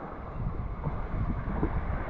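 Wind buffeting the microphone over the wash of the sea.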